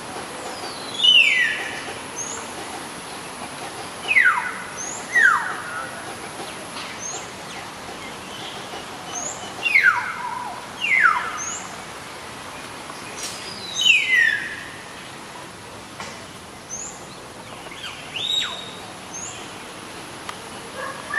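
Common hill myna (beo) calling: about seven loud whistles, each sliding steeply down in pitch, a few seconds apart, with faint short high chirps in between.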